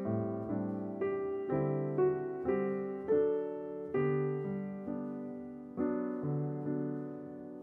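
Background piano music: slow notes and chords, each struck and left to die away.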